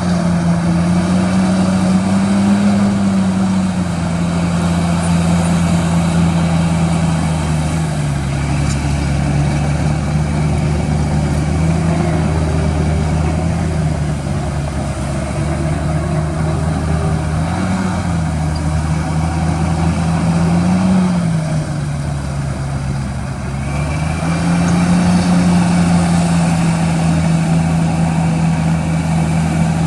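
Large diesel engine of heavy earthmoving machinery running under varying load, its pitch sagging and picking up again several times as the throttle and load change.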